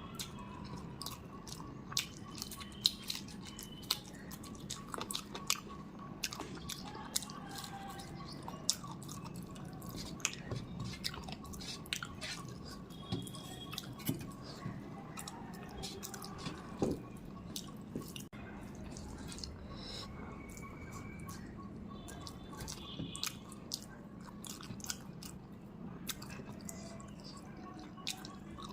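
Close-miked chewing and eating: a steady run of small wet mouth clicks, smacks and squishes as a person eats, over a faint steady hum.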